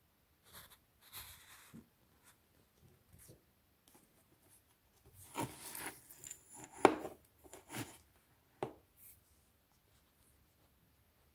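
Quiet scattered rustling and scraping with a few sharp knocks, the loudest cluster coming in the middle, with the sharpest knock near the middle.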